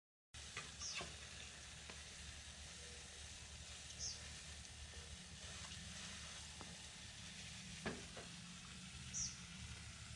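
Food frying in a pan: a steady sizzle with a few sharp crackles.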